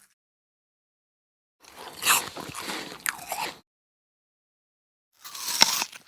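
Crisp bites into an apple, crunching twice: a longer crunching bite of about two seconds, then a shorter, sharper one near the end.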